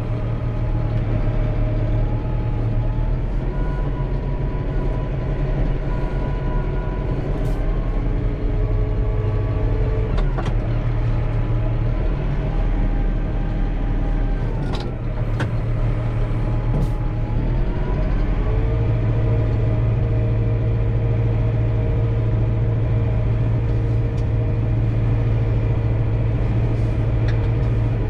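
Tractor engine running steadily under load while ploughing, its pitch dipping and rising again a few times. A few sharp knocks or clicks come around the middle.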